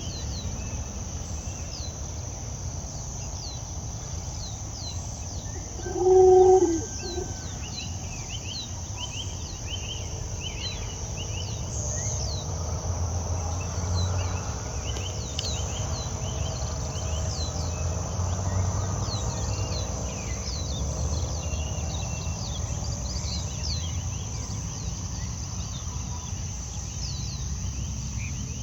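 Tropical outdoor ambience: a steady high insect drone under many short, falling bird chirps. About six seconds in comes one loud, short, low-pitched animal call.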